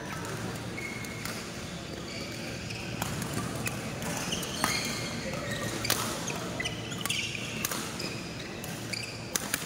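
Badminton rally: about five sharp racket hits on the shuttlecock, starting about three seconds in and coming every second and a half or so, with short shoe squeaks on the court floor and chatter in the hall.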